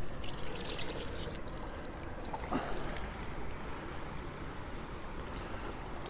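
Steady rush of water pouring through a dam spillway, with a few faint clicks in the first second.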